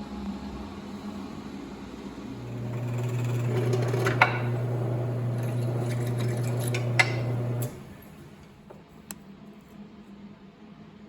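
A machine's steady low hum starts about two seconds in and stops abruptly near eight seconds, with a couple of sharp clicks while it runs.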